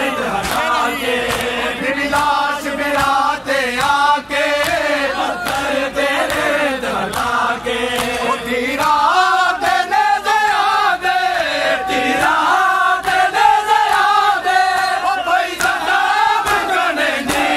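A Punjabi noha (Shia lament) sung by a group of male reciters and a crowd of men chanting along, with long bending and held notes. Regular slaps of chest-beating (matam) keep time under the singing.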